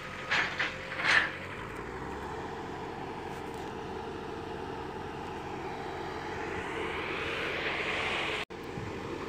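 Steady road noise of vehicles on a mountain highway, swelling slowly as one draws near, with three short louder rushes of sound in the first second or so.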